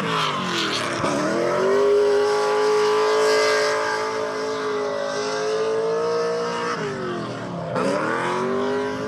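A drift car's engine running hard on track: the revs dip and climb back, hold high and steady for several seconds, then dip and climb again near the end.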